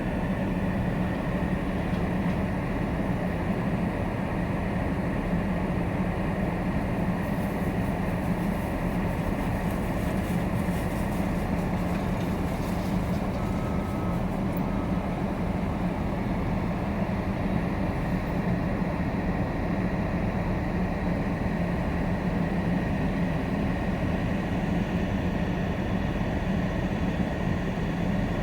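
Skid steer loader's engine running steadily at an even pitch, with no revving.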